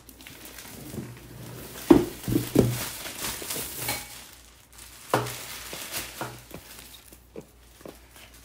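Cardboard laptop box being handled and opened on a wooden table, with crinkling plastic shrink-wrap. It gives three sharp knocks about two seconds in, another thump about five seconds in, and lighter taps and rustling between.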